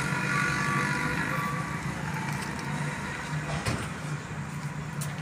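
A motor vehicle's engine running steadily with a low hum, with a couple of faint clicks.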